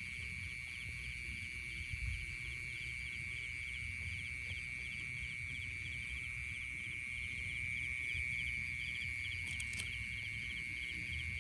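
Chorus of night-calling insects: a steady high trill with an evenly pulsed chirping above it. There is low rumbling handling noise underneath and a couple of short clicks near the end.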